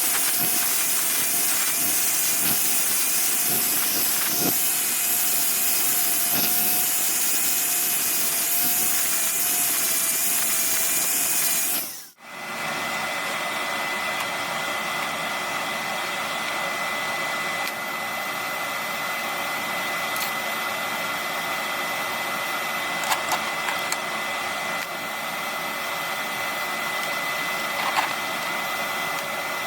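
Steady hissing tool noise from metal fabrication work, with a faint wavering whine. It cuts out abruptly about twelve seconds in and gives way to a different steady hum with a constant high whine and a few light clicks.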